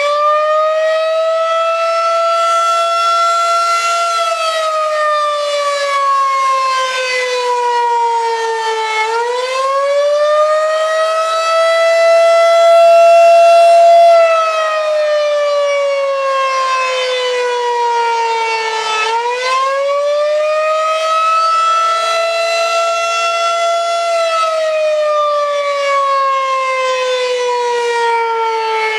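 Federal Signal 2001-130 outdoor warning siren sounding a wail test. Its tone rises over a couple of seconds, holds, then slides slowly down, repeating about every ten seconds, with a loudest stretch near the middle.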